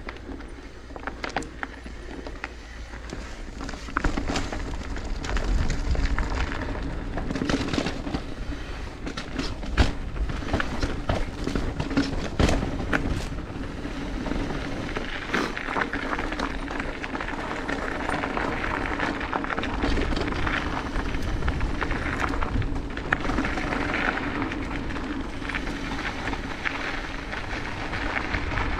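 Mountain bike riding down a dirt trail: steady tyre noise over the ground, broken by frequent clicks and knocks as the bike clatters over bumps and roots.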